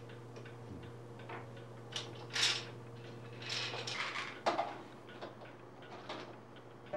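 Plastic pill bottles clicking and knocking against one another and the wooden box as they are picked up and set down, a handful of short scattered handling sounds with the loudest about two and a half seconds in. A low steady hum runs underneath until about four seconds in.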